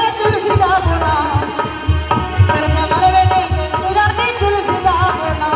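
Music: a song whose wavering melody line runs over a steady tabla-like hand-drum beat.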